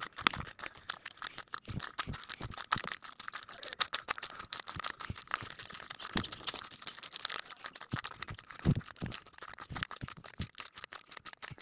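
Footsteps crunching on a loose gravel and stone path, a string of irregular dry crunches and soft thumps.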